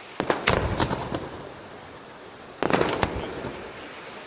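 Aerial firework shells bursting: a quick run of sharp bangs just after the start, then a second cluster about two and a half seconds in, each fading into a rumble.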